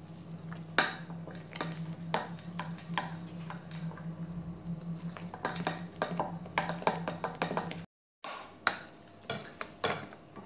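Metal spoon stirring flour into a wet yeast dough in a glass bowl, clinking and scraping against the glass in irregular strokes. The sound breaks off for a moment near the end and then goes on.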